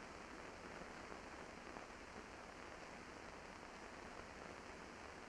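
Faint steady hiss of an old film soundtrack, with nothing else heard.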